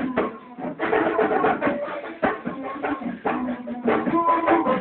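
Pagode group playing live: hand drums and other percussion struck in a steady, busy rhythm, with a small stringed instrument playing along.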